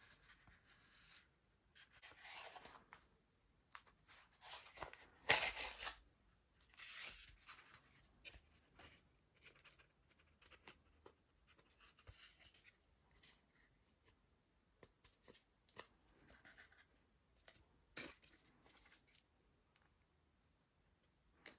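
Faint, scattered handling noises at a workbench: short rustles and scrapes of light parts being handled, with a few sharp clicks, the loudest rustle about five seconds in.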